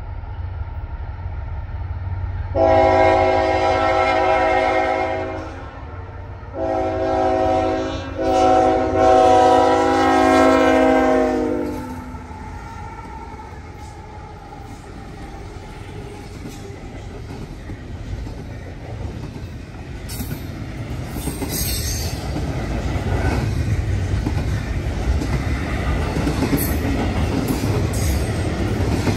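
Diesel locomotive air horn sounding a multi-note chord on a Canadian National freight train led by GE ET44AC locomotives. It gives a long blast, a short one and another long one that sags in pitch as it cuts off. The locomotives' engines and the train then rumble steadily, growing louder, with wheel clatter on the rail joints from about twenty seconds in.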